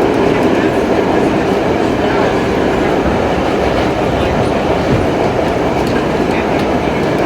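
R32 subway car running on the (D) line: steady, loud rumble and rattle of the train's wheels on the rails.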